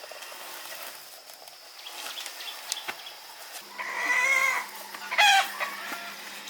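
Chickens calling: a drawn-out call about four seconds in, then a shorter, louder one a second later. A steady high insect buzz runs underneath.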